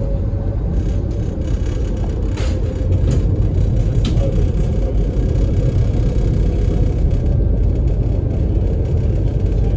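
Supercat-class ferry's diesel engines droning steadily through the passenger cabin, a loud low rumble. A few short clicks come near the middle.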